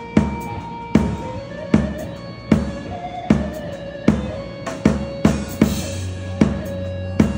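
Live Turkish folk music: a drum kit plays a slow, heavy beat, with a hard bass-drum-and-snare hit about every 0.8 s and a quicker pair of hits around the middle. Under it, an amplified bağlama (Turkish long-necked lute) holds sustained melody notes.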